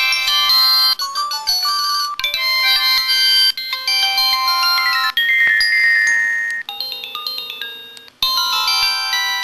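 Built-in electronic ringtone melody of an LG-SD1200 mobile phone, a bright tune of bell-like notes and chords. It stops briefly about eight seconds in and a new phrase starts.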